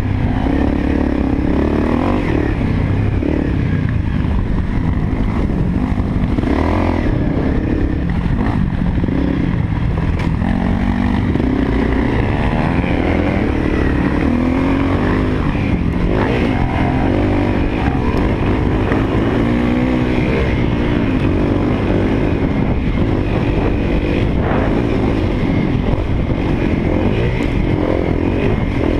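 Honda CRF250L dirt bike's single-cylinder four-stroke engine running under way on a trail, its revs rising and falling with the throttle.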